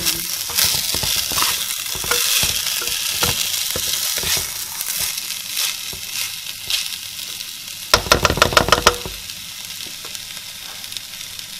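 Basmati rice frying in oil in a pot, sizzling steadily as a spatula stirs and scrapes through it in short strokes. About eight seconds in, a quick rattling clatter lasts about a second and is the loudest sound, after which the sizzle carries on more softly.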